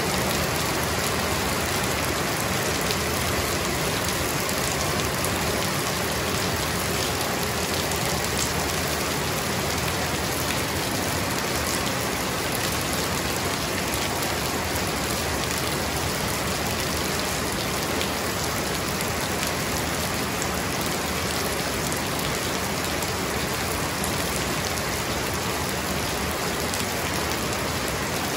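Heavy rain falling steadily: a dense, even hiss of rain on the ground and roofs, with scattered individual drop hits.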